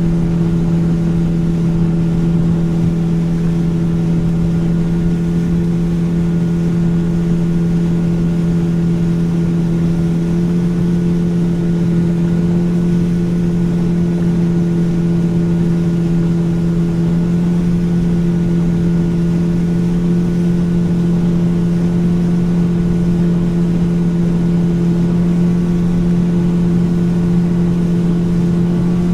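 Motorboat engine running at a steady cruising speed with an even, unchanging hum, over the rush of water along the hull.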